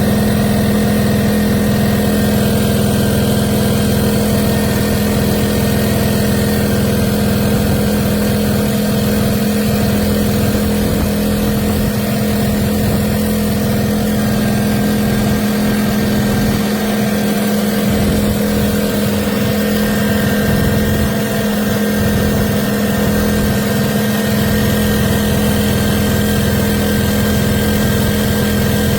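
Aceup Energy 2000 W petrol inverter generator's small four-stroke engine running at a steady speed, a constant loud hum with no change in pitch.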